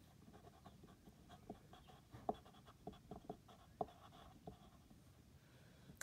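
Coloured pencil writing on paper: faint scratching strokes with small, irregular ticks as the letters are formed.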